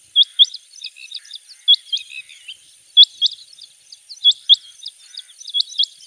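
Rain quail calling: sharp, high double notes repeated a little more than once a second, with fainter chirps in between.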